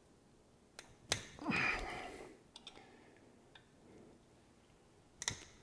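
A few light metal clicks as an offset screwdriver works a stuck screw out of the motorcycle engine case, with a short breathy sound about a second and a half in.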